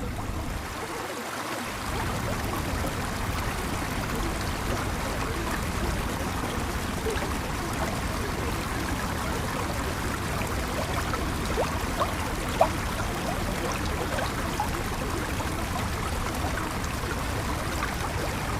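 Steady running water with small bubbling flickers, like a flowing stream, and a few brief clicks about twelve seconds in.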